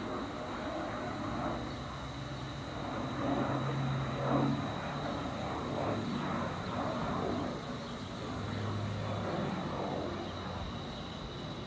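Distant, steady jet noise from an Embraer Phenom 300 business jet's two rear-mounted turbofan engines as it flies past, swelling a little a few seconds in.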